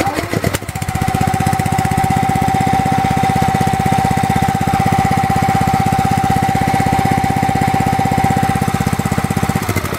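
Small single-cylinder petrol engine running steadily, switched over to propane to clean out the white spirit it had been running on. A steady whine-like tone sounds over the engine from about a second in and stops just before the end.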